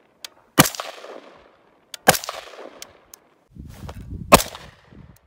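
Three rifle shots from an AR-style rifle, about a second and a half apart, each sharp crack trailing off in a short echo.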